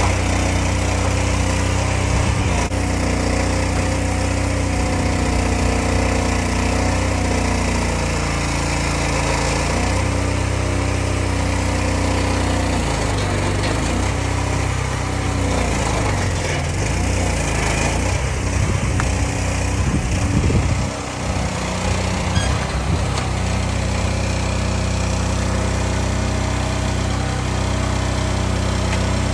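Engine powering a hydraulic knuckle-boom log loader with a grapple, running steadily. In the middle its pitch dips and rises several times as the boom lifts and swings a log.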